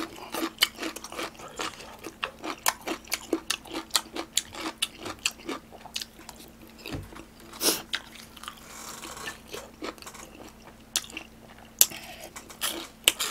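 Close-miked chewing of crunchy food: a dense, irregular run of crisp crunches and mouth clicks, softer for a moment in the middle, with a fresh bite into a piece of fried sweet-and-sour pork near the end. A faint steady hum runs underneath.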